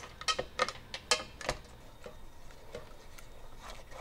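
Non-scratch spoon clicking and scraping against a heavy saucepan while stirring caramels melting in evaporated milk: a quick run of light knocks in the first second and a half, then only a few.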